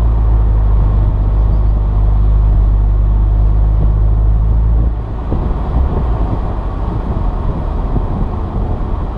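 Saturn Sky Red Line's turbocharged 2.0-litre four-cylinder running steadily at cruise, a strong low drone with road and wind noise heard from inside the car. About five seconds in the engine drone cuts off as the throttle is lifted, leaving a quieter rumble of tyres on the road.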